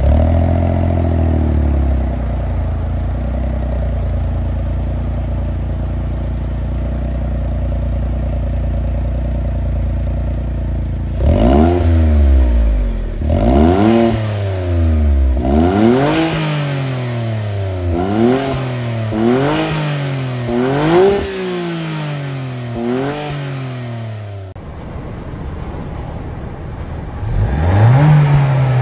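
Honda S660's turbocharged three-cylinder through a Spoon N1 muffler: it settles from a start-up flare into a steady idle, then is blipped about seven times in a row, each rev rising and falling back. Near the end, after a cut, a 2022 Civic hatchback's stock exhaust idles more quietly and then begins a rev.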